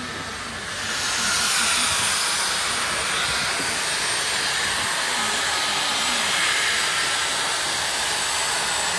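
An ice sculptor's handheld electric power tool running against a block of ice: a steady hiss with a faint high whine that comes in about a second in.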